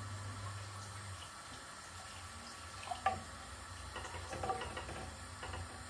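Pots simmering on a stove, a steady watery hiss over a low hum. About three seconds in, a spatula scrapes and knocks a few times as it stirs the curry in the casserole.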